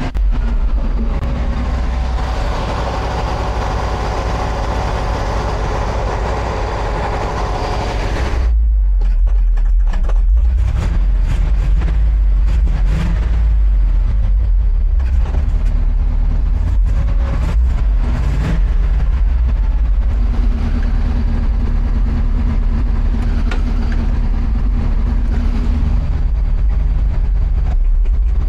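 The International 1800 dump truck's engine running steadily, drawing vacuum for the brake booster while the brakes are bled. About eight seconds in the sound turns louder and deeper.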